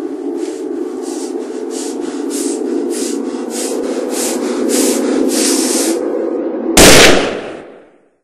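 Film sound effects: a steady low hum with a swishing hiss pulsing about twice a second, slowly growing louder. Near the end comes a single loud gunshot that dies away to silence within about a second.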